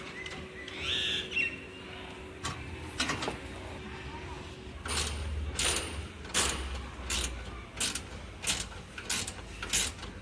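Hammer blows: a few separate knocks, then a steady series of strikes about one every 0.7 seconds through the second half.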